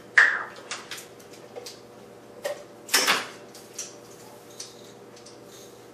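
Kitchen utensils and containers clicking and knocking at the stove as dried onion flakes are spooned into a frying pan of ground beef: about half a dozen separate sharp knocks, the loudest right at the start and about three seconds in.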